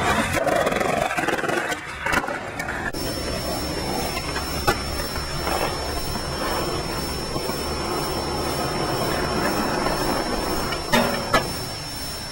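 Skateboard wheels rolling over concrete in a steady rough rumble, with a few sharp clacks of the board, two of them close together near the end. A thin steady high tone runs under it after the first few seconds.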